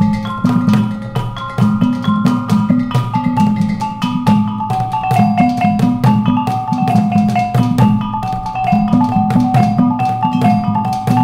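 Maguindanaon kulintangan gong ensemble playing: the kulintang, a row of small bossed gongs, rings out a moving melody over a repeating low pattern from the large hanging agung and gandingan gongs, with quick sharp strikes of the dabakan drum and the small babandil gong keeping time.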